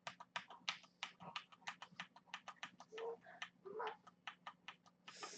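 Typing on a Corsair K70 LUX mechanical keyboard with linear Cherry MX Red switches: a quick, faint, uneven run of key presses, about five or six a second, that stops just before the end.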